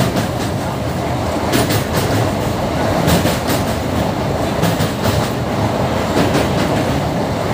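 Passenger train running across a steel truss bridge, heard from inside the coach: a loud steady rumble of wheels on the rails with irregular metallic clacks.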